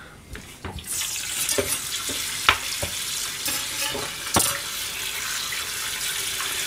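Kitchen tap turned on about a second in, water running steadily into a stainless steel sink, with two sharp knocks of things being handled in the sink.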